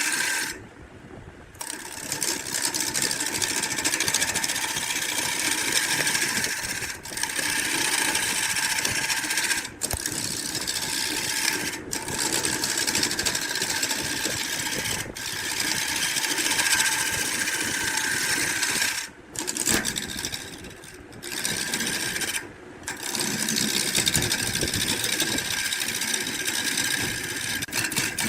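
Woodworking power tool running steadily with a buzzing mechanical noise, cutting out briefly several times.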